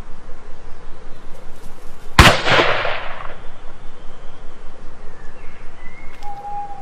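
A single rifle shot about two seconds in: a sharp crack followed by a rolling echo that dies away over about a second.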